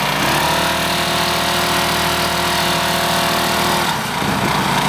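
Briggs & Stratton lawn mower engine driving a homemade outboard leg, running under throttle. Its note picks up slightly just after the start, holds steady, and changes about four seconds in.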